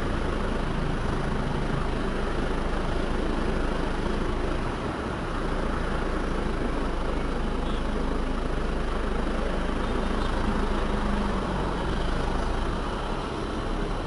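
Heavy diesel engine running steadily, a continuous mechanical noise with no distinct knocks or changes.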